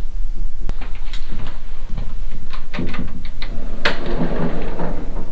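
A steady low rumble with scattered knocks and clicks, and one louder sharp crack about four seconds in.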